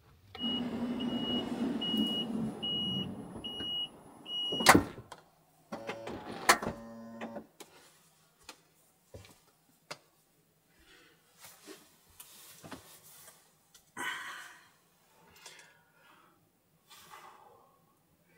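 A Toyota Hiace camper van's warning chime beeping about seven times, under a second apart, over a steady rushing noise, then a door shutting with a loud thump. Afterwards a few lighter knocks and rustling as someone moves about inside the van.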